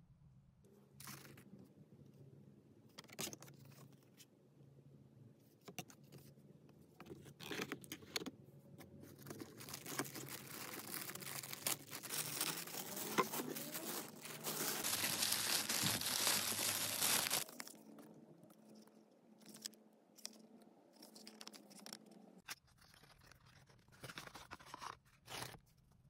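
Hands unpacking a cardboard box: scattered taps and rustles of card and cardboard, then tissue paper rustling and crinkling for several seconds in the middle, the loudest stretch stopping suddenly, followed by lighter handling sounds as the tube is lifted out.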